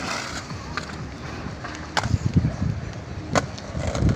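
Outdoor ambience with wind buffeting the microphone in gusts, stronger about halfway through, and three sharp clicks or knocks spread through it.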